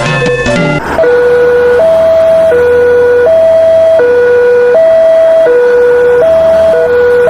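A short stretch of music, then about a second in an electronic two-tone siren alternating steadily between a high and a low note, each held about three-quarters of a second, in the style of an ambulance's hi-lo siren; it cuts off abruptly at the end.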